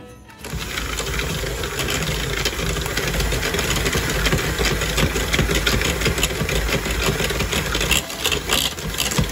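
Electric hand mixer switched on about half a second in and running steadily, its beaters clattering against the bowl as they beat an egg into creamed butter and brown sugar.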